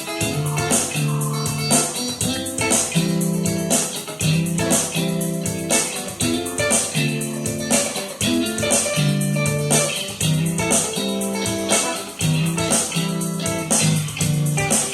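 Guitar played through a Zoom G1Xon multi-effects pedal: chords strummed in a steady, repeating rhythm with a regular beat of sharp ticks.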